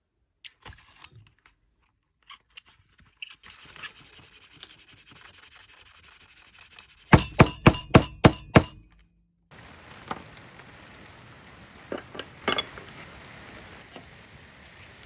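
Small clicks and handling noises, then six sharp knocks in quick succession, about four a second, followed by a faint steady hiss with a few light taps.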